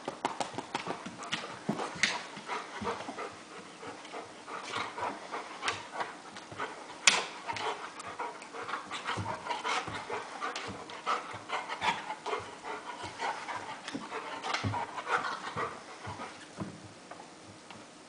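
Golden retriever panting and scuffling as it mouths and paws at a cat in a rough tussle, with irregular clicks and rustles of paws, teeth and fur. A sharp knock about seven seconds in is the loudest sound.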